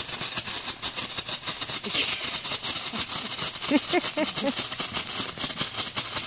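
Ground fountain fireworks spraying sparks: a steady hiss with rapid crackling, three fountains burning at once.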